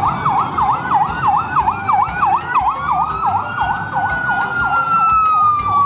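Ambulance siren on a fast yelp, sweeping up and down about four times a second. A second, slower siren tone rises about two seconds in and then glides down toward the end, over low street-traffic noise.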